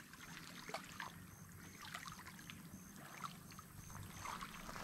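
Faint lake water lapping at a pebbly shore, with a few small ticks. A faint high chirp repeats evenly a few times a second.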